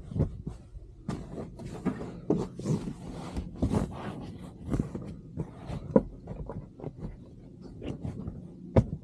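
Bedding in a truck's sleeper berth rustling and being pulled and smoothed as the bed is made, with two sharp knocks, one about two-thirds through and one near the end, over a low steady hum.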